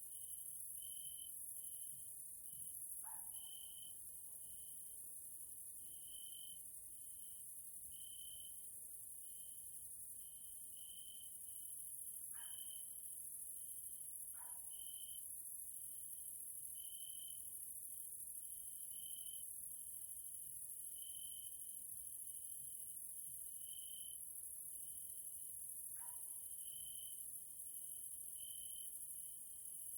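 Evening chorus of singing grasshoppers and crickets: a steady, very high-pitched trilling, with a lower chirping song pulsing about once a second. Four brief falling whistles sound through it: one a few seconds in, two close together near the middle, and one late.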